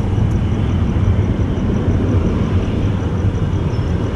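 Jet airliner engines, a loud steady low rumble.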